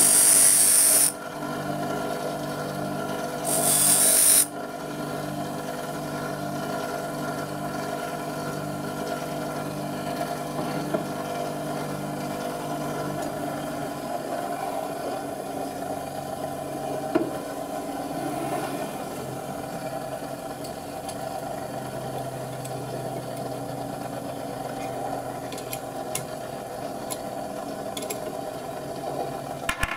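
Bench grinder running with a steady hum. Twice in the first five seconds, for about a second each, a loud high-pitched grinding hiss as the tip of a steel twist drill bit is pressed against the emery wheel to sharpen it. A few light clicks near the end.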